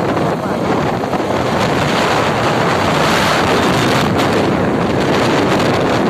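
Loud, steady wind buffeting the microphone of a phone moving along a road.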